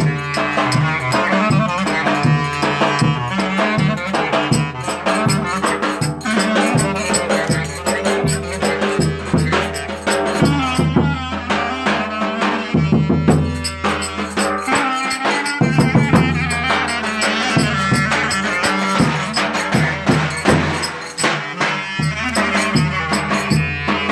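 Turkish folk dance tune (oyun havası) played live: melody instruments over a steady beat of drum and rattle-like percussion.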